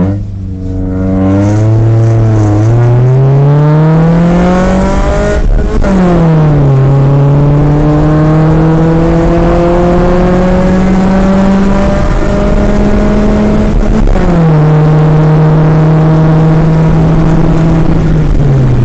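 Honda City's four-cylinder VTEC engine, breathing through an aftermarket Alpino F02 V2 exhaust, revving up hard under acceleration. The revs drop sharply at upshifts about five and a half and fourteen seconds in, then ease off near the end.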